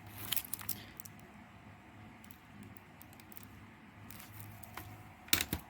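Plastic CD cases being handled and set down: a few light clicks near the start and a louder clatter of knocks about five seconds in, over a faint steady hum.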